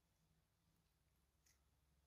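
Near silence: a faint low hum, with one faint click of the slime being squeezed in the hands about one and a half seconds in.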